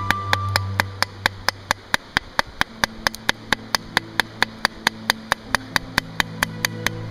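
A hand-held river stone hammering a length of 8 mm steel rebar laid on a boulder used as an anvil, forging the bar into a knife blade. Rapid, even blows, about five a second.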